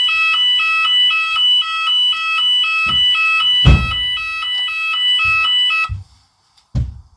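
Shop fire alarm sounder sounding its alert tone between voice evacuation messages: an electronic two-tone signal switching between two pitches about twice a second, which cuts off about six seconds in. A few dull low thumps sound under it, the loudest about halfway through.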